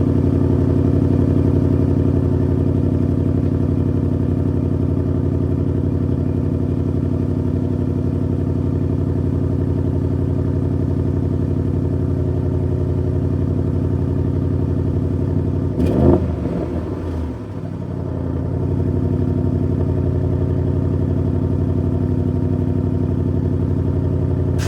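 Audi RS6 C8's twin-turbo V8 idling steadily through its exhaust, with a brief rise and dip in level about two-thirds of the way through.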